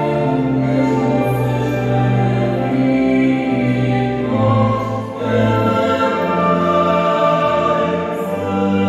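Church choir singing a slow hymn in long held chords that change every second or two, with a brief breath between phrases about five seconds in.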